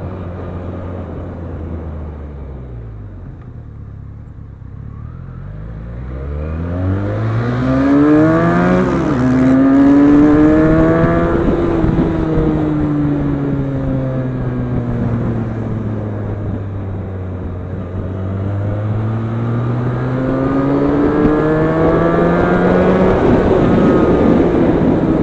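Benelli TNT 300's 300 cc parallel-twin engine through its stock exhaust. The engine note falls away at first, then climbs sharply under acceleration with a quick drop in pitch like a gear change. It eases down and then climbs again near the end.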